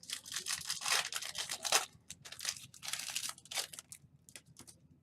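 Foil trading-card pack wrapper being torn and crinkled in a run of rasping rips, followed by a few light ticks of card handling near the end.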